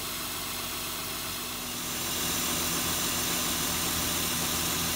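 Honda Odyssey's 3.5-litre V6 idling steadily, its serpentine belt driving a newly fitted alternator. The hum grows a little louder about two seconds in.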